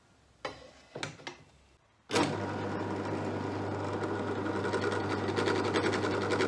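A few faint knocks, then about two seconds in a bench drill press starts up and runs steadily with a low hum as its step drill bores a leg hole through aluminium rectangular tube.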